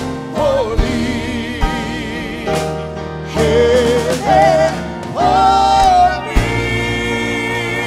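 Live gospel song: a woman singing with vibrato over keyboard and drums, holding a long high note, then a drum hit brings in a sustained closing chord from the band.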